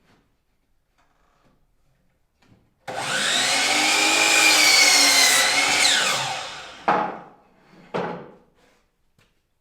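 An electric woodworking power tool starts abruptly and runs for about three seconds under load, its pitch rising and then sagging, before winding down. Two sharp knocks follow.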